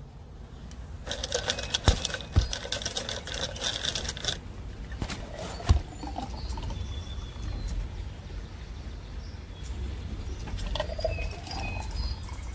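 Outdoor ambience of small birds chirping, with a rapid rattling chatter in the first few seconds and short high chirps later. A few sharp knocks stand out over a low steady rumble.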